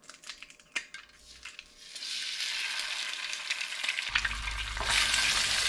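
An egg cracked and dropped into a hot pan with a little cooking oil: a few sharp taps, then sizzling that starts about two seconds in and grows louder.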